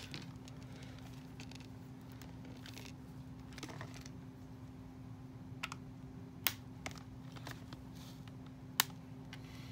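Scattered light clicks and taps of a plastic doll and its card-and-plastic packaging being handled and worked loose, with a few sharper snaps about six and a half and nine seconds in. A steady low hum sits underneath.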